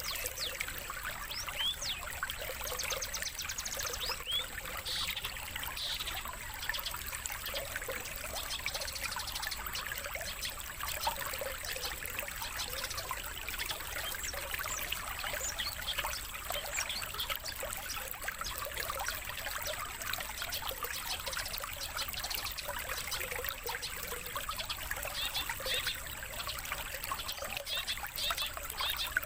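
Songbird calls for training caged birds: many quick chirps and twitters, including long-tailed shrike (cendet) lure calls, over steady trickling water.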